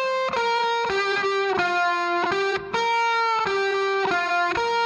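Background music: a slow melody of single held notes, each changing about every half second.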